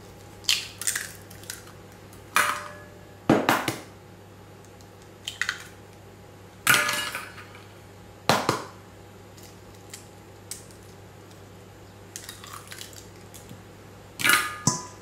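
Eggs being cracked for a batter: a series of sharp knocks and cracks of shell against a mixing bowl, spaced a second or a few seconds apart.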